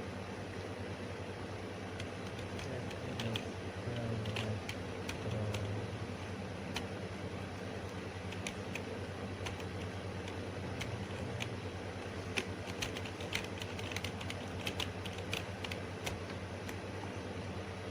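Computer keyboard typing: irregular keystroke clicks, some in quick runs, over a steady background hum.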